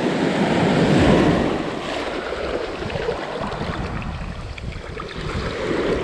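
Ocean surf washing over the shallows, with wind buffeting the microphone; the wash swells loudest about a second in, eases off, then builds again near the end.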